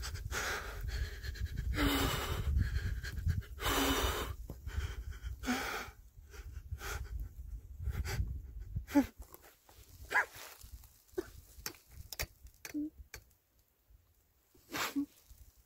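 A man breathing hard and panting, the loudest breaths in the first half over a low rumble on the microphone, then quieter breaths broken by short voiced catches and gasps. This is the heavy, emotional breathing of a hunter right after shooting a buck.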